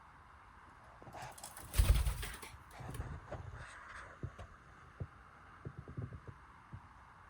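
Cockatiel startled into a short flurry of wing flapping, loudest about two seconds in, followed by scattered light taps and clicks.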